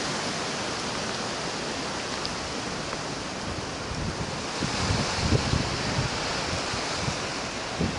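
Steady hiss of hurricane wind and rain as the storm passes, with gusts buffeting the microphone from about four seconds in and again near the end.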